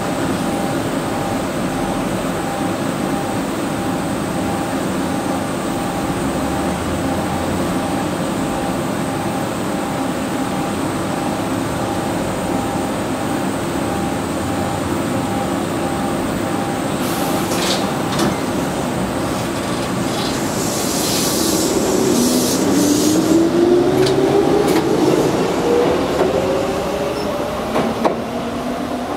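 Shizuoka Railway 1000 series electric train standing at the platform with a steady electrical hum from its equipment. About 17 seconds in come a few clicks and a hiss. From about 22 seconds a whine rises steadily in pitch as the traction motors accelerate the train away from the station, with a wheel click near the end.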